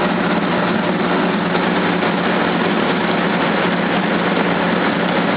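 Tour boat's engine running steadily, a constant low hum under an even rushing noise.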